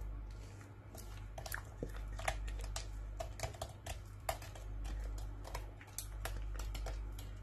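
Thick chocolate cake batter being poured into a lined metal cake pan: irregular soft clicks and plops scattered through the pour, over a low steady hum.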